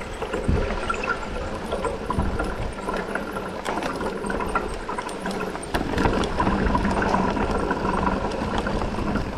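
Mountain bike rolling down a bare rock slab: steady tyre roar on the granite with scattered clicks and rattles from the bike, and wind rumbling on the handlebar microphone.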